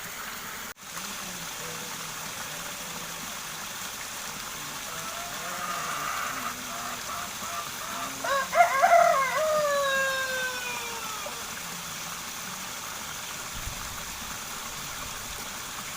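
A rooster crowing once near the middle: one long call that climbs, then slides down in pitch and fades. A steady rush of flowing water runs underneath.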